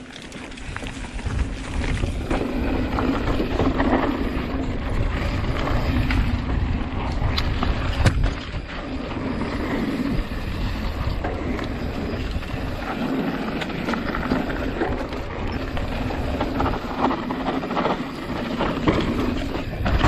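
Mountain bike riding fast down a dirt singletrack, heard through the rider's action camera: wind buffeting the microphone over a low rumble and rattle of tyres and bike on the rough trail, with a sharp knock about eight seconds in.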